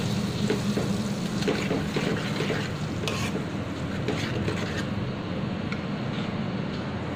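Steel spoon stirring a curd-and-cream gravy in a pan, with short scraping strokes against the pan, over a steady low hum.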